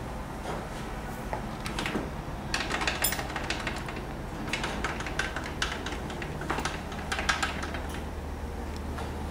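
Irregular sharp clicks and light knocks in short clusters, over a steady low hum.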